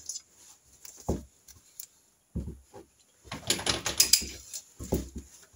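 Socket ratchet clicking in short runs as it is swung back and forth, tightening the oil pressure relief valve body into an engine crankcase, with a dull knock about a second in and another near the end. The clicks are densest between about three and four seconds in.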